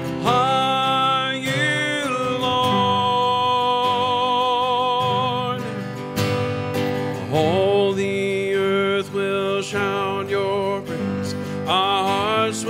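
Worship band playing a slow song: acoustic guitar under sung vocal lines, with several long held notes.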